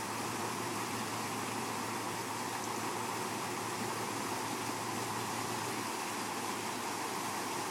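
Creek water rushing steadily through a breach in a beaver dam.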